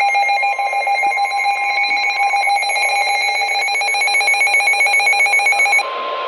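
Emergency Alert System attention signal: a loud, steady two-tone alarm with a fast flutter. About six seconds in it cuts off sharply, and a single steady tone continues over radio static, the NOAA Weather Radio warning alarm tone. Together they signal a severe thunderstorm warning about to be read.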